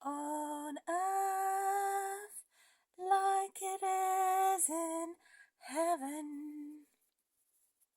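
A woman singing a slow hymn unaccompanied, holding long steady notes in three phrases with short silences between them.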